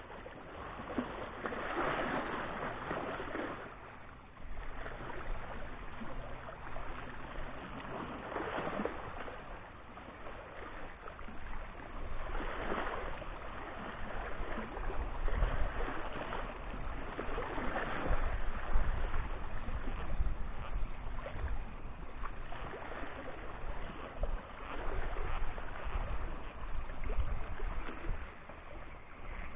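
Small sea waves washing and lapping over shallow rocks, swelling every few seconds. A low rumble joins about halfway through.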